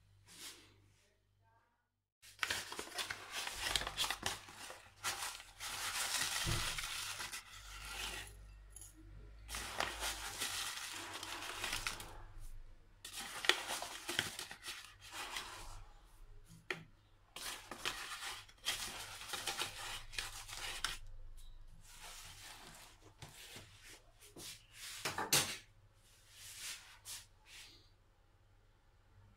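Rustling and crinkling of the inner bag of a box of oat flakes as it is opened and handled, in irregular bursts starting about two seconds in, with dry oat flakes poured from the bag into a glass bowl.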